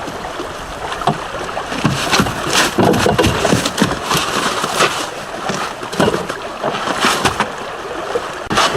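Steady rushing noise of wind and river water, broken by scattered short knocks at irregular times.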